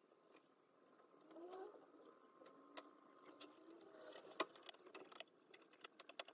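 Near silence with a few faint clicks and handling noises of wiring leads and plastic plug connectors being fitted to a battery management board. The sharpest click comes about four and a half seconds in.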